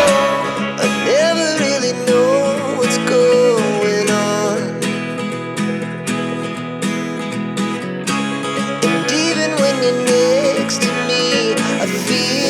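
Background music: a song led by guitar, with a wavering sung or lead melody line over a steady beat.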